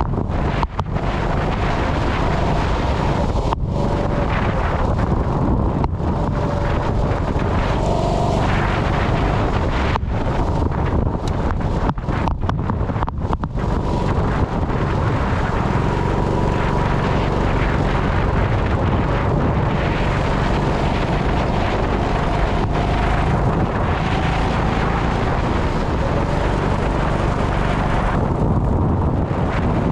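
Go-kart engine running hard, its pitch rising and falling, with wind buffeting the microphone.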